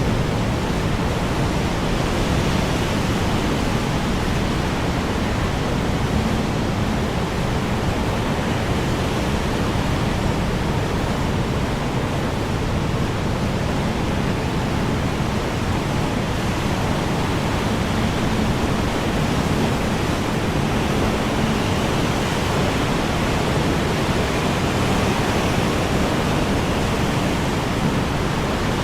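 Strong wind blowing steadily, a dense even rush with no gusts standing out.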